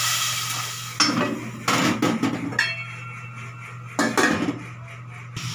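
Water poured into a hot stainless steel pot of sautéed pork hisses for about a second, then a metal pot lid clanks against the pot four times, some strikes leaving a short metallic ring, as the pot is covered to boil the pork.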